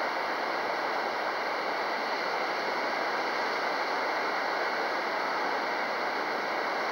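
Steady rushing wind noise, even and unbroken.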